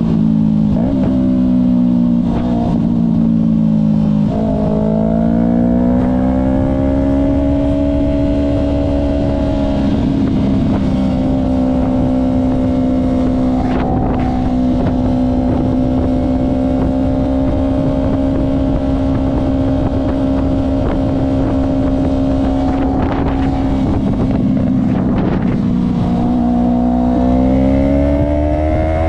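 Yamaha R3's 321 cc parallel-twin engine through an M4 Street Slayer exhaust, heard from on the bike while riding. The engine note climbs under acceleration about four seconds in, holds steady at cruising revs for most of the stretch, then climbs again near the end.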